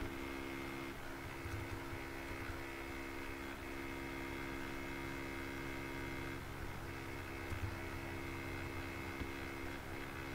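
Steady low electrical hum with background hiss from the recording setup, with a few faint clicks.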